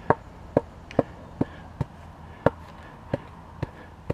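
Homemade wooden hand tamper (a 4x4 nailed onto a 2x4) lightly striking cold-patch blacktop in a driveway pothole. About nine short knocks come at roughly two a second, unevenly spaced, compacting the patch so it bonds to itself.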